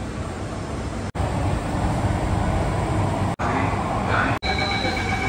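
Metro train running, heard from inside the car: a steady rumble of rolling and running noise. After about four seconds a steady high whine at several pitches joins in.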